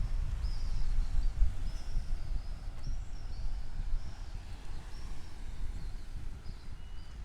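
Small birds chirping in short, high calls again and again, over a low rumble of wind on the microphone that eases off toward the end.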